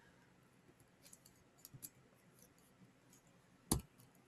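Quiet room tone with a few faint ticks, and one sharp click a little before the end.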